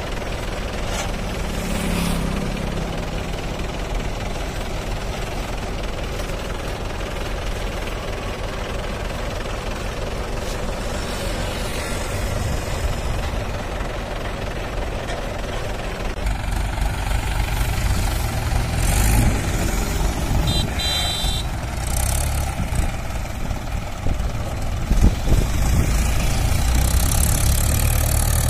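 Mahindra tractor's diesel engine running steadily, louder from about halfway through.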